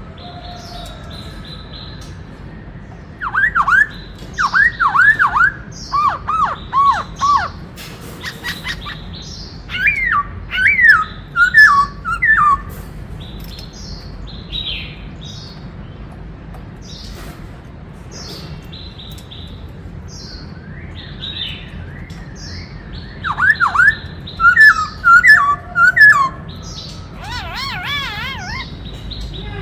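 Black-throated laughingthrush singing a varied song: three loud bouts of quick whistled notes that sweep up and down, with fainter chirps between them.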